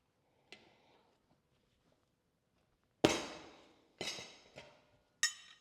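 Sharp knocks and clanks of metal tools and the wheel being handled while a tire is worked onto the rim over a mousse: one loud hit about three seconds in that fades out, two lighter knocks about a second later, and a ringing metallic clank near the end.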